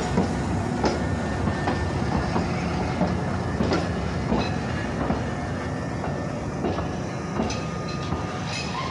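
Toei 8800-series tram pulling away, a steady low rumble with its wheels knocking on the track about once a second, fading slightly near the end as it moves off.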